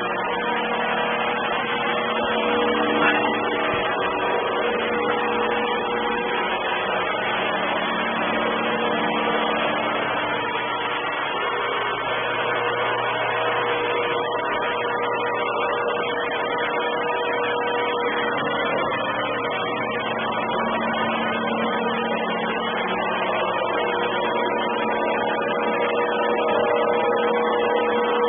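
Robot vacuum cleaner running: a steady motor and suction drone with a few held tones, heavily distorted through the camera's microphone.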